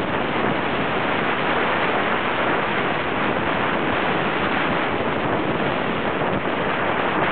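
Wind blowing across the microphone mixed with the rush of surf, a dense, steady noise with no breaks.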